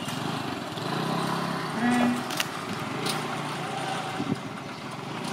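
Outdoor crowd din: scattered voices over steady background noise, with a few short sharp knocks.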